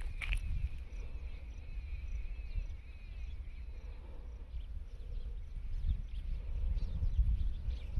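Outdoor ambience: wind rumbling on the microphone, with a bird calling in a wavering, chirping line over the first few seconds.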